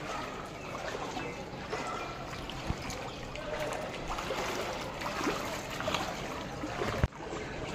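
Floodwater sloshing and swirling steadily around a person's legs as they wade through knee-deep water, with a couple of brief sharp knocks.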